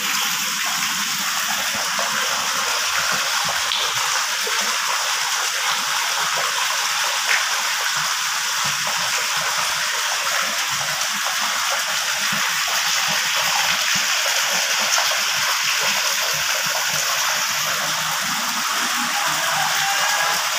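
Water gushing steadily and splashing into a crowded fish pond, a continuous even rush.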